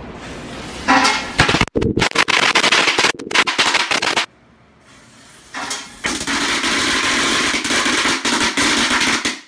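A string of firecrackers going off indoors in a rapid, crackling run of pops starting about a second in and dying down around four seconds in, then another dense run of pops over the last few seconds.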